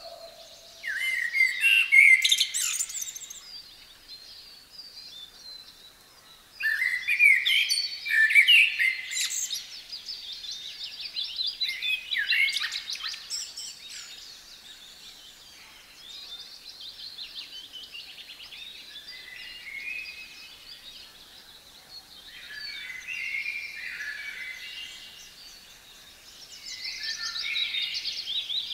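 Songbirds singing: phrases of quick, high chirps and trills a few seconds long, separated by short pauses.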